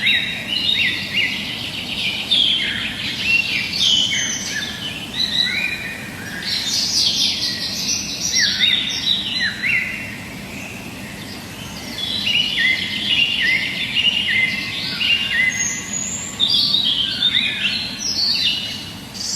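Many small birds chirping and calling at once, short overlapping notes that often fall in pitch, thinning to a brief lull about halfway through before the chorus picks up again.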